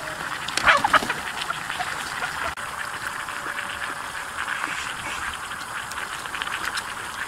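A person eating from a seafood dry-pot: two loud sucking slurps about a second in, then chewing and small clicks over a steady hiss.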